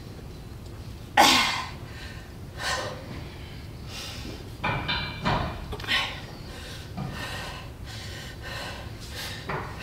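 Forceful, noisy breaths from a woman doing heavy barbell back squats: a loud sharp exhale about a second in, then several shorter breaths spaced a second or two apart.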